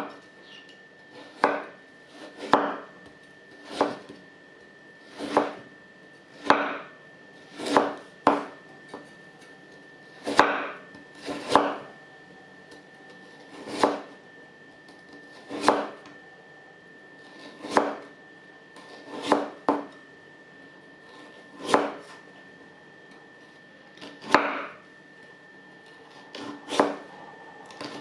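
Stainless-steel chef's knife slicing through a raw carrot and knocking on a wooden cutting board, one cut every second or two, about eighteen cuts in all.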